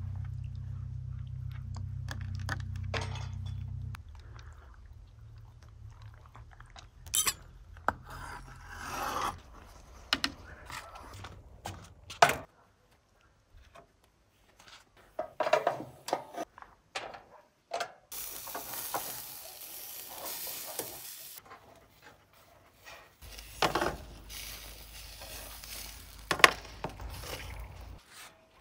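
Food-handling sounds of metal skewers and utensils: scattered clicks and knocks on a tray and board, with a few seconds of steady hissing past the middle. A low hum fills the first few seconds.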